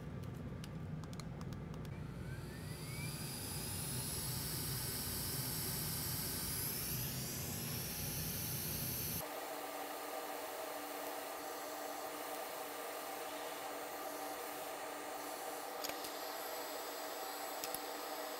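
Hot air rework station blowing a steady hiss while reflowing a MOSFET onto a laptop motherboard. The hiss grows brighter over the first few seconds, and about halfway through it changes suddenly, losing its low rumble and taking on a few steady tones.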